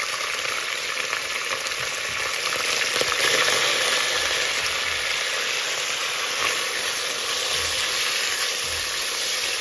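Beef chunks frying in hot vegetable oil in a deep pot, with a steady, even sizzle. Near the end a spatula stirs the meat.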